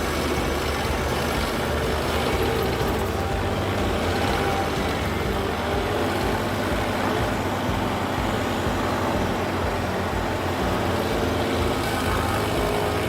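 A heavy machine's engine running steadily under a constant mechanical din, with no distinct strikes or changes.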